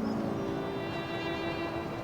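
Soundtrack music: slow, held violin notes with vibrato over a steady background rush.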